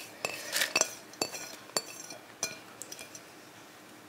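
White ceramic plate clinking and scraping against the rim of a mixing bowl as shredded green mango is tipped off it: about half a dozen light clinks in the first two and a half seconds, then only soft handling noise.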